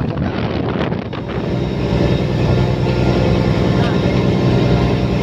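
Fishing boat's engine running steadily, its drone coming up louder after about a second, with wind buffeting the microphone at the start.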